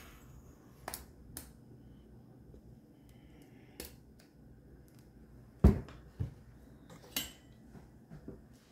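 Spatulas being handled against a foil cake tray and the countertop while cream cheese icing is spread: a scattering of separate taps, clicks and clinks, the loudest a dull thump a little past halfway.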